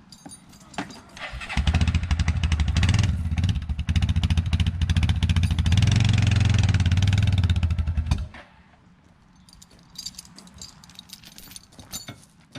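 The engine of the vehicle being backed up to tow the ATV starts about a second and a half in, runs steadily for several seconds and then shuts off abruptly. Faint metallic clicks follow.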